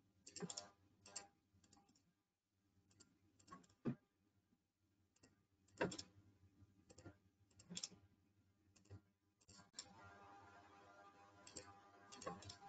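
Faint, scattered clicks of a computer mouse, single and in quick pairs, as leader arrows are placed in a CAD drawing. A faint steady hum comes in near the end.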